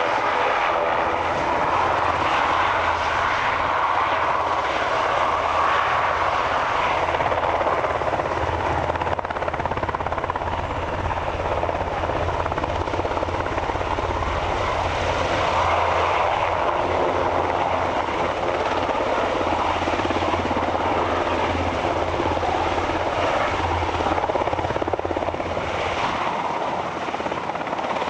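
Sikorsky S-92 helicopter's rotors and twin turbine engines running steadily as it lifts off and hovers low.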